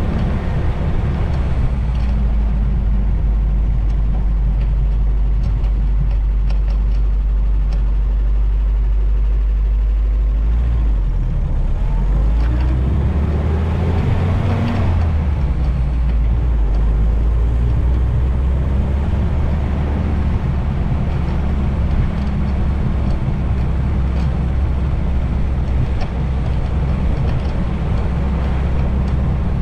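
Vintage Willys Jeep driving with its windshield folded down: the engine and road noise run steadily under a heavy low rumble of wind on a foam-covered GoPro microphone. About halfway through there is a brief rise and fall in pitch.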